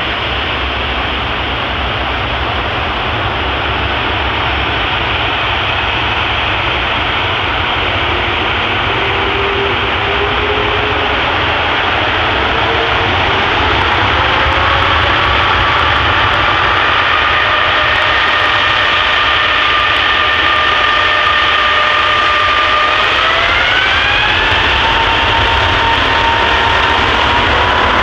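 Airbus A380-800's four jet engines running at low power as it taxis: a steady rush with a whine. The whine appears about halfway through and rises in pitch in two steps, the second a few seconds before the end, as the engines spool up.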